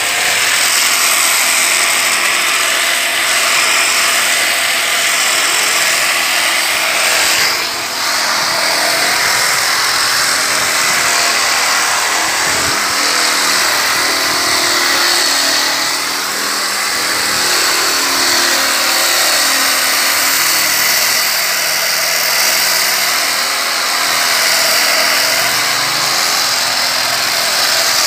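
Electric angle grinder with a sanding disc running steadily against wooden boat planks, sanding the boards. There is a brief dip about eight seconds in.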